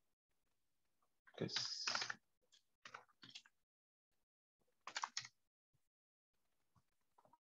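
Faint typing and clicking on a computer keyboard and mouse, in a few short spells.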